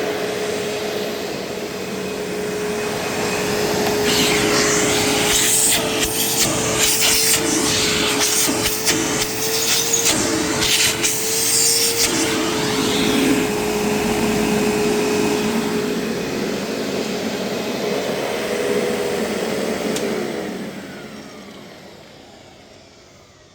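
Panasonic MC-V6807 upright vacuum running with a steady motor whine, worked over a pile rug with rattling and scraping from about 4 to 13 seconds in. Its belt is worn, so the brush roll stalls when it hits the rug. Near the end the motor is switched off and winds down.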